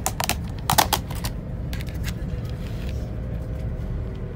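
A clear plastic food box being opened and handled: a cluster of sharp clicks and crackles in the first second and a few more near two seconds in, over the steady low hum of a high-speed train carriage.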